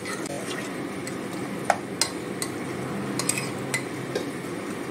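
Metal ladle stirring mutton curry in an aluminium pressure cooker, with several sharp clinks of the ladle against the pot over a steady low hiss of the cooking curry.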